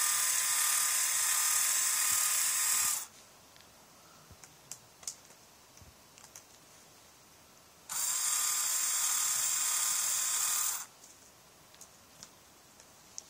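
Small electric screwdriver running as it backs out the two screws on the netbook's screen frame. It runs steadily, stops about three seconds in, then starts again with a brief rise in pitch and runs for about three more seconds past the middle. Light clicks of handling come between the two runs.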